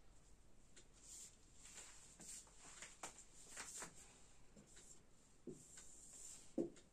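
Faint scratching strokes of a marker pen on a whiteboard as lettering is written and underlined, with a short low thump near the end.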